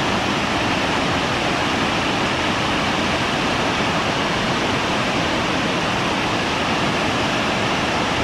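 Middle McCloud Falls, a big waterfall, giving a steady, unbroken rush of falling water.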